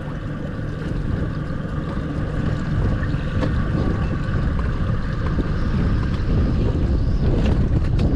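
Boat motor running steadily at low speed while the boat is steered onto its trailer, with wind rumbling on the microphone.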